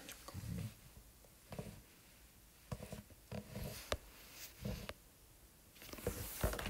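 A few faint sharp clicks and soft brief knocks, with stretches of near quiet between them.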